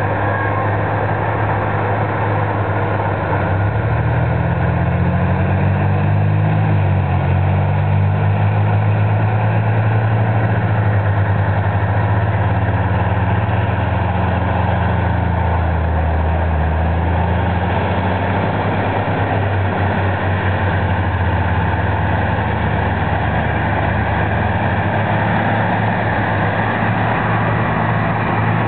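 Tractor engine running steadily as it works the field, a continuous low engine note whose pitch wavers a few seconds in and that grows a little fainter in the later part.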